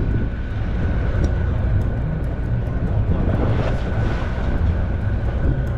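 Fishing boat's engine running steadily: a low rumble under an even wash of noise, with a faint steady high whine.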